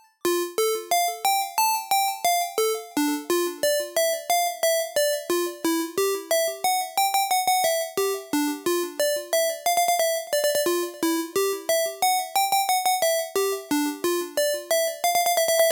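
UJAM Usynth Pixel software synthesizer playing a chiptune-style melody of short, bright, plucky notes, several a second, in the manner of 80s and 90s game-console sounds.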